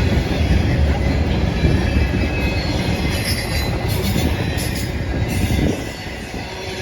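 Norfolk Southern intermodal freight train rolling past, its cars rumbling on the rails; the rumble drops off sharply near the end as the train passes.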